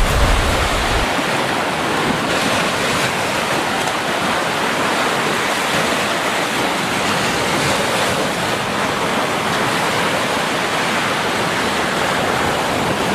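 Steady rushing noise with no distinct events, with a low rumble dying away about a second in.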